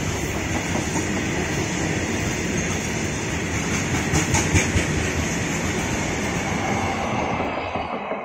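Loaded open-top coal wagons of a freight train running past at speed: a steady rumble of steel wheels on rail with clickety-clack over the rail joints, a sharper burst of clatter about four seconds in. The train noise drops away abruptly just before the end.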